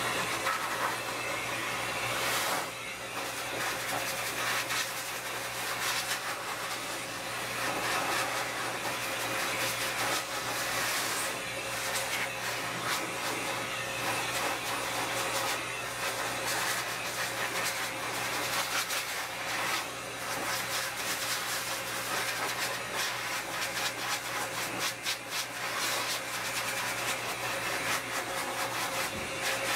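Forced-air dog grooming dryer running steadily, its air rushing out of a corrugated hose onto a wet dog's coat, with a steady tone under the rush. The sound shifts a little as the nozzle is moved over the coat.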